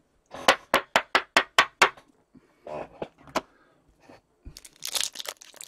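Trading cards snapped through one at a time by hand: a quick run of sharp clicks, about four or five a second, then a few more. Near the end comes the crinkle of a foil card pack being picked up.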